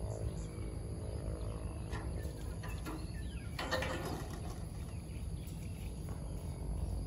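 A railway semaphore signal's arm swinging back to the stop position, heard as a brief mechanical rattle about three and a half seconds in, over a steady low rumble.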